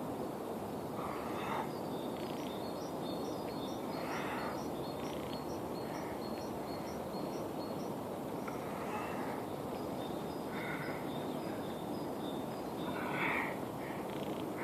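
Outdoor ambience: a steady low background noise with birds calling over it. Short harsh calls come every few seconds, and about two seconds in a rapid run of high chirps, about four a second, goes on for around four seconds.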